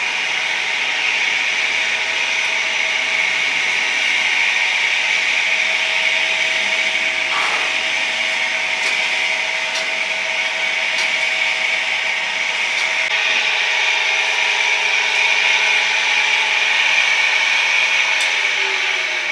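Steady whirring of a small motor with a strong hiss, and a few faint clicks now and then; a low rumble beneath it stops about two-thirds of the way through.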